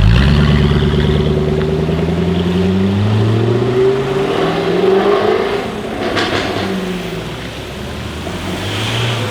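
Jaguar F-Type Project 7's supercharged V8 accelerating hard, its pitch climbing for about five seconds before falling away. A few sharp exhaust crackles come about six seconds in, as it comes off the throttle.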